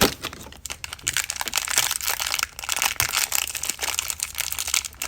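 Plastic packaging crinkling and rustling in the hands as a small toy figure is unwrapped, in a run of irregular crackles.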